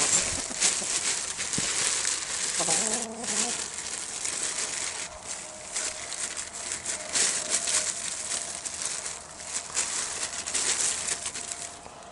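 Plastic bag and baking paper crinkling and rustling as hands toss red mullet in flour inside the bag.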